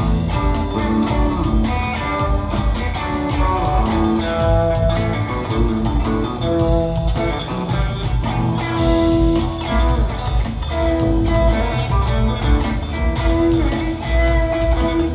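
Live rock trio of electric guitar, bass and drum kit playing an instrumental passage, with held guitar notes over a steady bass and drum groove, recorded on a phone in the audience.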